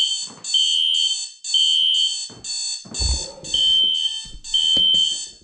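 System Sensor SpectrAlert Classic fire alarm horn, set to low volume, sounding in short buzzy blasts about twice a second, together with a Westclox alarm clock beeping about once a second. A couple of faint knocks come around the middle.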